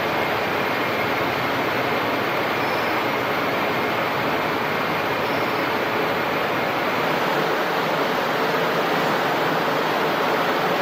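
Chicago & North Western passenger (business) cars rolling past a station platform under a train shed: a steady, even noise of wheels running on rail, with no distinct clacks.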